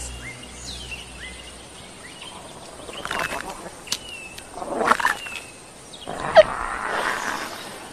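Baby dragon sound effects: a run of short chirping, squawking cries. About six seconds in comes a louder cry, followed by a breathy hiss.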